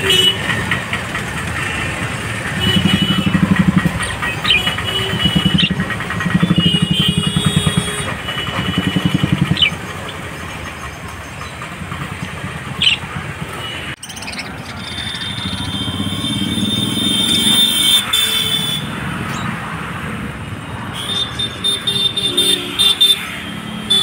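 Street traffic with motor vehicle engines running, loudest in four surges in the first ten seconds and again a little past the middle, with short chirps from small caged birds.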